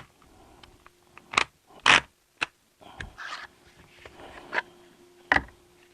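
A 3D-printed plastic speed loader and an AR-15 magazine being worked to load .223 cartridges: a string of sharp clicks and scrapes of plastic and brass, about six clicks spread irregularly, the loudest a little under two seconds in.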